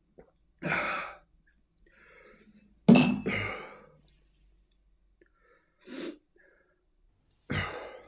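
A man's loud, harsh breathy vocal outbursts, four in all with silence between, the loudest in two quick parts about three seconds in.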